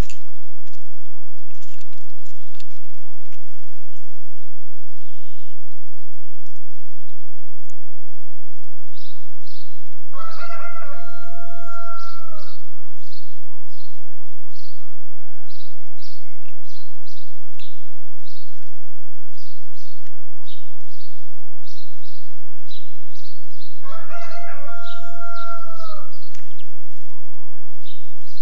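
A rooster crowing twice, each crow about two and a half seconds long with a slight drop in pitch at the end, the two crows about fourteen seconds apart. Repeated short, high bird chirps run underneath, with a few sharp clicks near the start.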